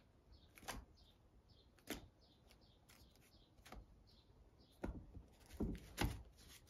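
Banded stacks of paper bills being handled in a metal cash box: scattered soft rustles and light knocks, with a few louder ones close together near the end.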